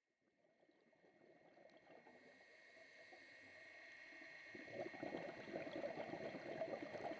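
Underwater ambience picked up through a waterproof camera housing: irregular bubbling and gurgling water noise with a faint steady high tone, fading in from silence and growing louder.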